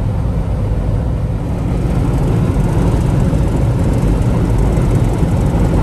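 Steady low rumble of road and engine noise from a vehicle driving at highway speed.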